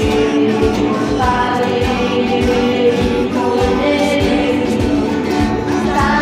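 Several acoustic guitars strummed together, with voices singing along.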